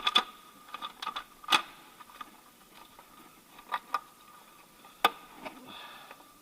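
Scattered sharp clicks and knocks of the valve cover and its bolts being handled as the cover is set back onto the engine's cylinder head. The loudest knocks come about one and a half seconds in and again near five seconds.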